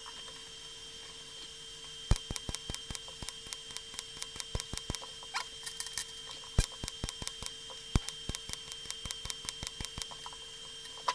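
TIG welding stainless steel, tacking a washer onto a bolt at 160 amps: a run of sharp, irregular clicks and crackles, several a second, starts about two seconds in and goes on almost to the end, over a faint steady whine.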